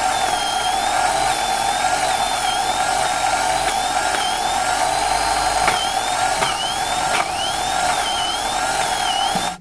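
Homemade electric coconut grater running steadily, its high whine dipping in pitch and recovering again and again; it cuts off suddenly at the end.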